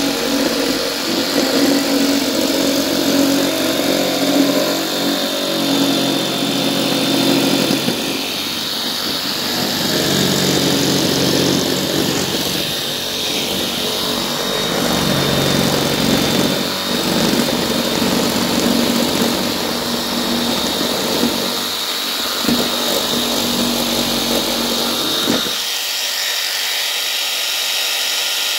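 Electric jigsaw cutting a wooden board, its motor running loud and steady with the pitch wavering as the blade works through the wood. About 25 seconds in the low part of the sound drops away, leaving a steadier higher hiss.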